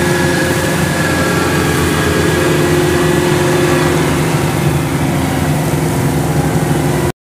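Kubota DC-105X combine harvester's diesel engine running steadily under load, with the clatter of its header and threshing drive, as it moves through a rice field. The sound cuts off suddenly near the end.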